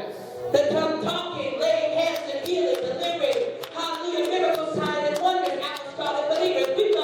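Worship music in a church: voices singing held, sliding notes over instruments, with clapping or percussion hits throughout.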